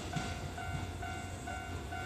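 Japanese level-crossing warning bell ringing its repeated electronic "kan-kan" tone, about two strikes a second, over the low rumble of a train.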